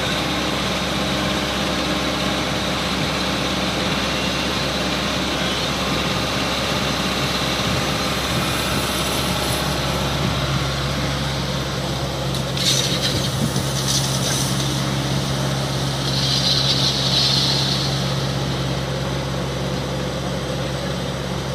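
Kobelco SK140 crawler excavator's diesel engine running steadily while the machine swings and works its hydraulics. A deeper steady tone comes in about halfway through. A few short bursts of higher-pitched noise follow later on.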